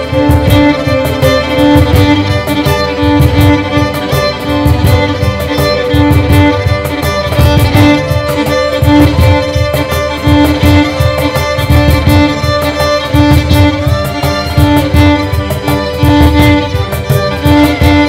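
Live string ensemble of violins, viola and cello playing an arrangement of a Persian traditional tune, with a cajon beating a steady rhythm underneath and one string note repeated in a pulsing pattern.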